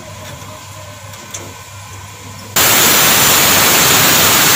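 Compressed air hissing out of a railway coach's air-brake distributor valve as its release handle is lifted, venting the pressure so the brakes come off. The loud, steady hiss starts suddenly about two and a half seconds in.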